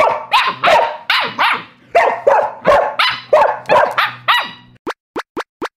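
A Samoyed barking loudly and repeatedly, about three barks a second. Four short rising whistle-like sweeps follow near the end.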